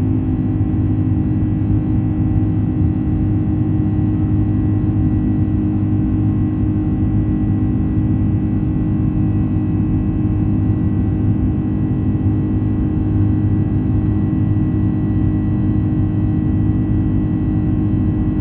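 Boeing 767-300 cabin noise from a window seat while the jet climbs after takeoff: the engines and rushing air make a steady, loud rumble with a constant hum running through it.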